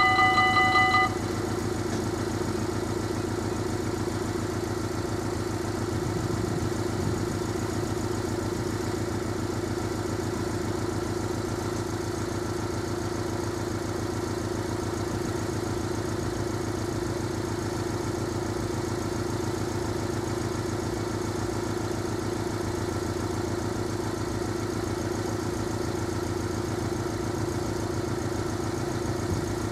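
Level crossing warning bell ringing rapidly, cutting off about a second in. After it, a sports car's engine idling steadily close by.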